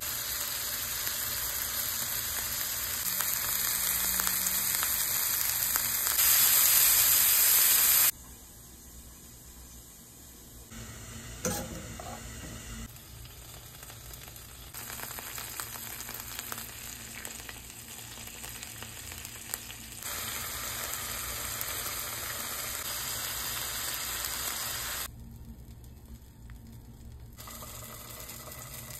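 Chunks of raw sausage sizzling as they fry in oil in a nonstick pan, growing louder over the first several seconds before cutting off abruptly. Shorter stretches of frying sizzle follow, with a single sharp knock partway through.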